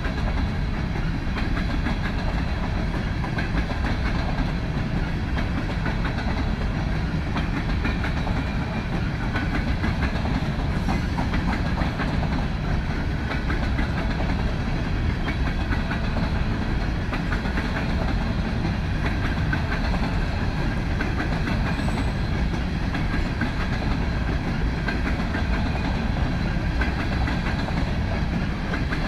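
Freight train of covered hopper cars rolling steadily past, its steel wheels running on the rails in a continuous, even noise.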